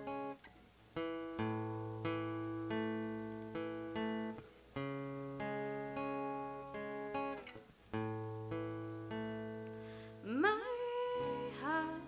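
Acoustic guitar picking a repeating pattern of notes that ring and fade over low bass notes. Near the end a voice slides upward in pitch as the singing comes back in.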